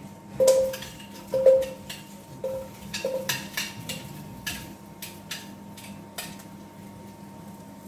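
Metal tongs clanking against a cast-iron camp oven and a plate as onion halves are dropped into the pot: two loud ringing clanks in the first two seconds, then softer clinks and clicks.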